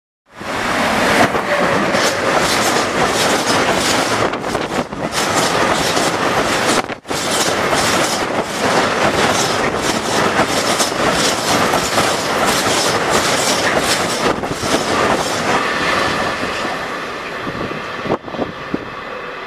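Freight train of tank wagons rattling loudly past at speed, its wheels clattering fast over the rails. The sound fades over the last few seconds as the train draws away.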